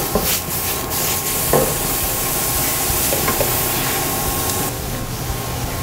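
Small squid tentacles sizzling in hot olive oil in a frying pan, a steady hiss, with a couple of brief knocks.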